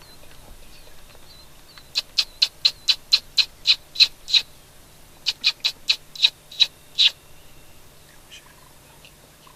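Lip squeals for predator calling: sharp, high-pitched squeaks made with the lips to imitate a distressed rodent or rabbit, to draw in a coyote. They come about four a second, in a run of about ten, then after a short pause a run of about seven.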